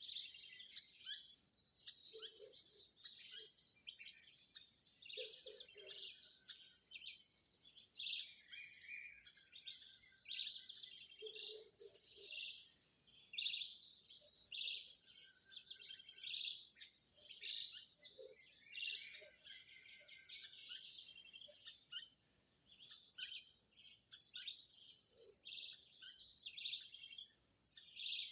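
Dawn chorus: many birds chirping and calling over a steady, high-pitched insect trill, with a few short, low notes now and then.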